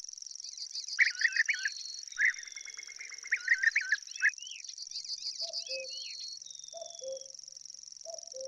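Several birds calling over a steady high-pitched insect drone: bursts of loud, quick chirps and trills in the first half, thin falling whistles, then a low two-note call repeated three times about a second and a half apart.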